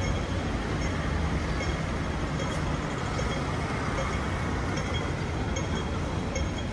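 Steady city street traffic noise: vehicles running past in a continuous, even rumble.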